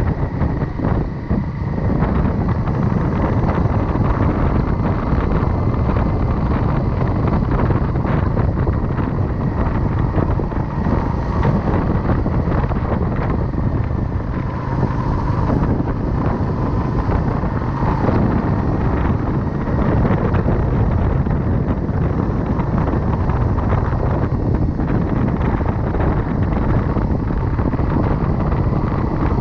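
Steady wind rush on a chest-mounted camera's microphone while riding a motorcycle, with the motorcycle's engine running underneath.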